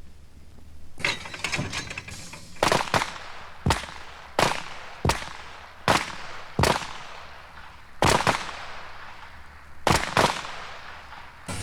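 Pistols firing on a military range: about a dozen sharp shots at uneven intervals, some in quick pairs, each with a short echo.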